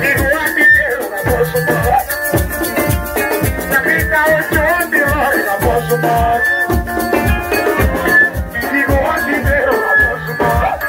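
Live ohangla band music: electric keyboards over bass and drums, with a tambourine jingling on a fast, steady beat.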